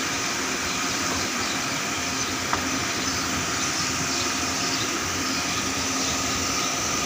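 Steady machine drone: an even rushing noise with a constant hum, unchanging throughout, and a single light click about two and a half seconds in.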